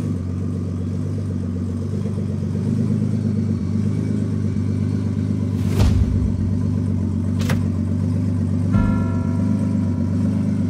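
Nissan 370Z drift car's engine running at low revs, a deep steady rumble. Two sharp hits land about six seconds in and again a second and a half later, and a sustained music chord comes in about nine seconds in.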